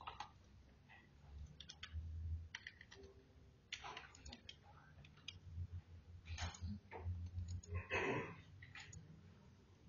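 Irregular computer mouse clicks, some sharper and louder than others, scattered through the stretch.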